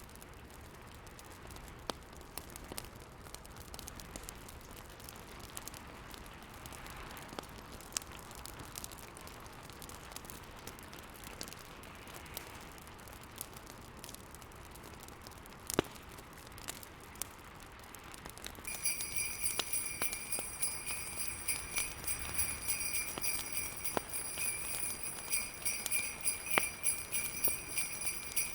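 Fireplace crackling, with scattered sharp pops over a soft steady hiss of storm wind. About two-thirds of the way through, jingle bells start shaking in a steady rhythm and carry on, louder than the fire.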